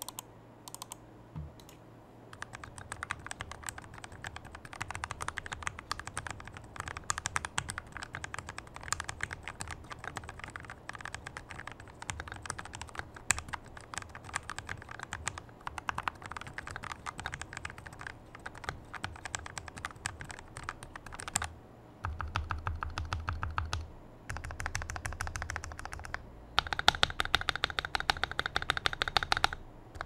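Typing sound test on a mechanical keyboard with an aluminium case, Krytox 205g0-lubed Akko Starfish linear switches and thick PBT keycaps: fast continuous keystrokes. The clacks are clean, with no spring ping. About 22 s in the typing turns into a quicker, more even run of keystrokes with a deeper thock, loudest in the last few seconds.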